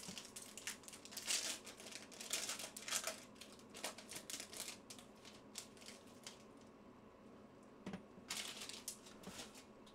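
Foil trading-card pack wrapper being torn open and crinkled by hand, in bursts of rustling over the first few seconds, quieter for a while, then crinkling again near the end.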